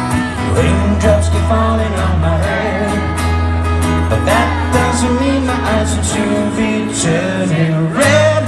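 Live music played through a festival PA: acoustic guitar strummed under singing, with a trumpet playing the melody in the first part.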